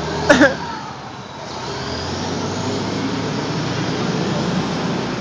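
Road traffic, with a vehicle passing and growing louder from about a second and a half in. A short, loud pitched call sounds about a third of a second in.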